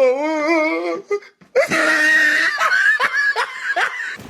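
A person laughing hard: a long wavering laugh, a brief pause about a second in, then high-pitched shrieking laughter.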